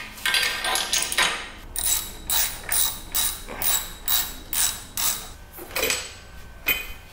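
Socket ratchet wrench clicking as it backs out a motorcycle frame slider bolt, in even strokes about three a second that grow sparser near the end.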